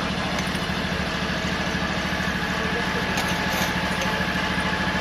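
An engine running steadily with a fast, even throb and a faint steady whine above it. A light click about three seconds in.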